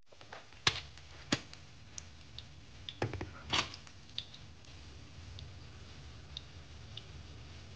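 Black ladle knocking against a steel soup pot as it is stirred: a handful of sharp clicks in the first few seconds, then fainter ticks, over a faint low hum.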